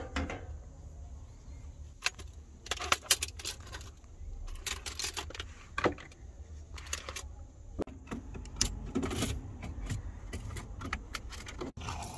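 Kitchen clatter as dinner is prepared at a small camper-van stove: a hob cover lifted, a drawer opened, utensils and a knife clinking and knocking in a string of sharp clicks. It sits over a low steady rumble.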